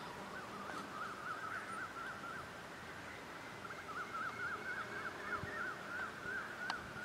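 A bird calling in two long runs of quick, rising-and-falling warbling notes, with a brief pause between them. A faint steady hum lies underneath, and a single click sounds near the end.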